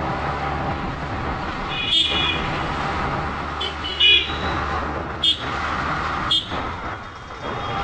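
Motorcycle riding through traffic, with steady engine and road noise. Five short vehicle horn beeps sound through it, the first about two seconds in.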